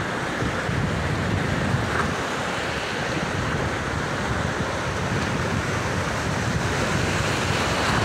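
Pacific Ocean surf breaking and washing up the beach in a steady rush, with wind buffeting the microphone.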